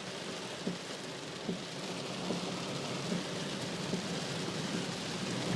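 Heavy rain falling steadily on a car, heard from inside the cabin, with a low steady hum underneath.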